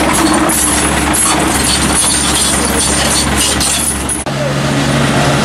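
Volvo mini excavator running close by, its diesel engine under a busy mechanical clatter of rapid clicks and rattles. About four seconds in the sound changes abruptly to a steadier engine hum with a low drone.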